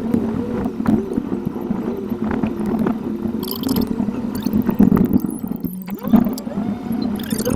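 In-car dashcam sound of a drive, engine and road noise sped up to eight times normal speed, so it comes out as a fast, warbling, squeaky jumble of pitches over a steady hum.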